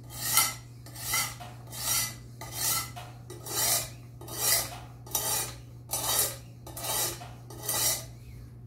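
Coarse 120-grit diamond plate, wetted with water, scraping along the steel edge of a cleaver in a guided knife sharpener. There are about ten steady strokes, a little over one a second, as the bevel is profiled at 18 degrees.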